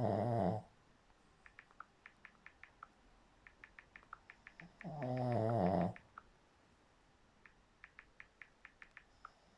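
Snoring: a long, loud, wavering snore on each breath, about five seconds apart, with faint quick clicks in the quieter stretches between them.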